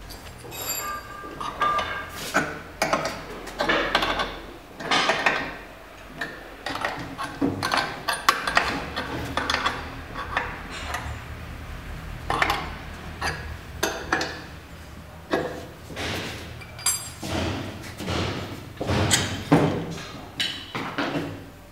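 Irregular metallic clanks, clinks and knocks from a hand-operated HDPE pipe butt fusion machine being worked by hand: its steel clamps and carriage being moved and adjusted, and its electric facing tool handled. A low hum runs underneath.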